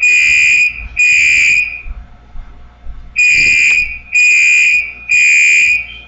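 Fire alarm under test sounding loud, high-pitched electronic beeps in the three-beep evacuation pattern: two beeps, a pause of about a second and a half, then three more beeps, which stop near the end.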